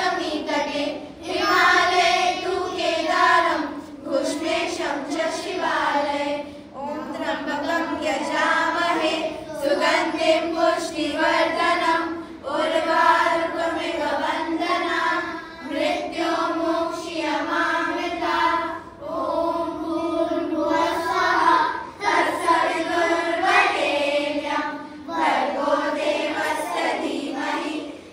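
A group of children chanting a Hindu devotional prayer in unison, in sung phrases of about three seconds each with short breath pauses between them.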